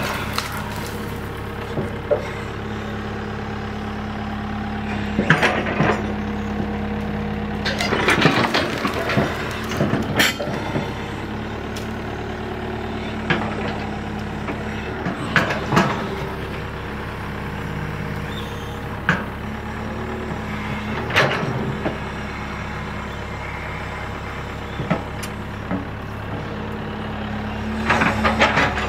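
Tata Hitachi Zaxis 120 excavator's diesel engine running steadily under load as it digs, with short sharp cracks and knocks every few seconds as the bucket works the soil and brush.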